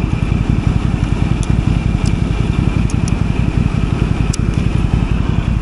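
Quad (ATV) engine running steadily close by, with a constant high whine above it and a few faint clicks.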